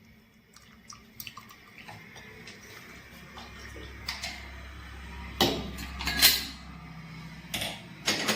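Hot herbal tea (kadha) poured from a small teapot through a strainer into a cup, with scattered clinks of pot and strainer against the cup that grow louder in the second half.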